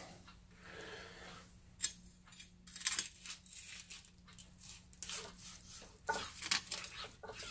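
Chef's knife carving a roasted beef rib roast away from the bone on a wooden cutting board: irregular soft scrapes and clicks of the blade against bone and board, with a louder cluster about six seconds in.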